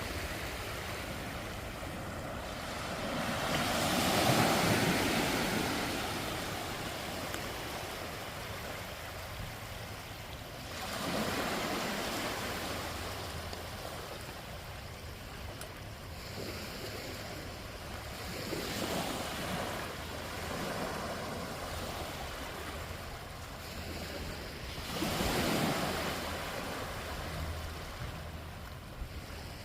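Waves breaking on a beach, the surf swelling four times about every six to seven seconds, loudest about four seconds in, with some wind noise on the microphone.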